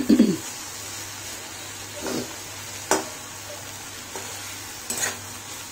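Metal spatula stirring and scraping boiled potato, bitter gourd and tomato in a metal kadai over a steady sizzle, loudest right at the start, with a few sharp clinks of spatula on pan.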